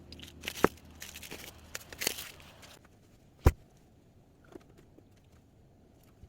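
Rustling and light clicks of small objects being handled, then one sharp knock about three and a half seconds in.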